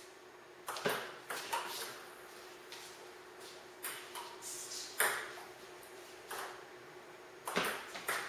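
Table tennis ball clicking off rubber paddles and the table in short rallies, the hits coming in quick runs with pauses between. The sharpest hits come about five seconds in and again near the end.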